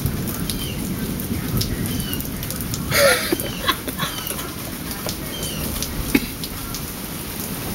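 Steady rain falling, with short falling chirps every second or so and a brief louder burst about three seconds in.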